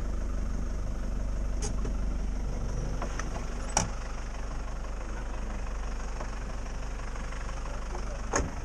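Motorcycle engine idling steadily as a low rumble, with a few short, sharp clicks.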